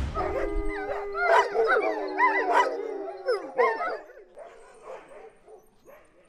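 A pack of Alaskan husky sled dogs yipping and whining together, many overlapping calls with one long steady call held under them for about the first three seconds. The calls fade after about four seconds to a few faint yips near the end.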